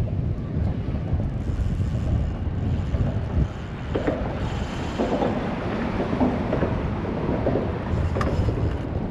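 Wind rumbling on the microphone, a steady low rumble, out on an open boat.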